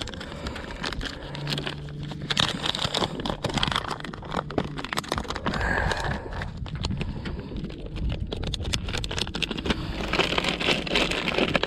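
Plastic soft-plastic bait packet crinkling and rustling as it is opened and handled, with scattered clicks and scrapes. A low steady hum runs for a few seconds near the start.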